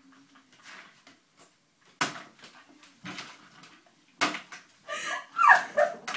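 Sharp knocks and clatter of things being handled and set down on a wooden table, a few separate hits, then a louder burst of clatter with a short falling squeal near the end.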